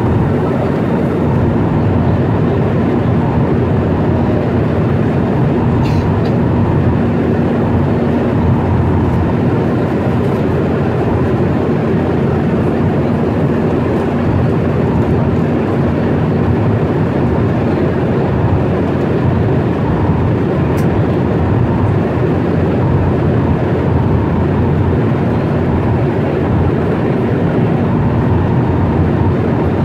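Steady drone of a jet airliner's engines and rushing airflow, heard from inside the cabin at a window seat over the wing engine, with a faint low hum held for several seconds partway through.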